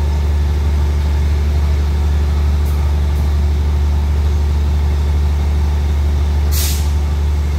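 Diesel passenger train standing at the platform with its engine idling, a loud, steady low drone. A short hiss about six and a half seconds in.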